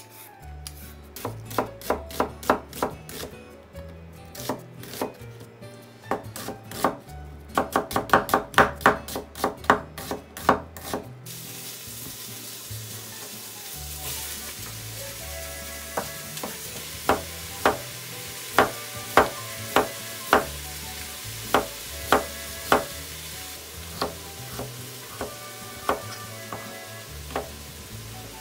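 Kitchen knife chopping on a wooden cutting board in quick runs of sharp knocks. About eleven seconds in, a steady sizzle of food frying in a pot starts, and the knife keeps chopping over it, cutting carrot into strips. Soft background music with a low bass line runs underneath.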